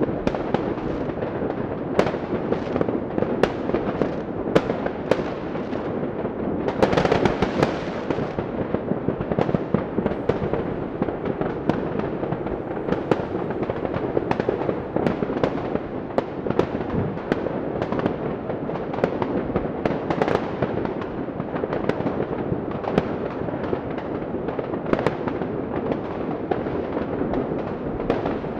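New Year's fireworks and firecrackers going off continuously: dense crackling and popping with many sharp bangs, growing louder and denser for a moment about seven seconds in.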